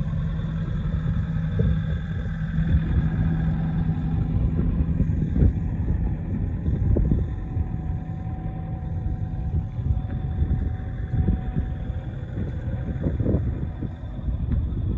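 Kobelco SK85MSR excavator's diesel engine idling steadily, under an uneven low rumble.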